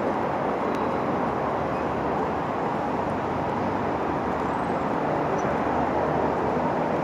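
Steady rain falling, an even, constant hiss.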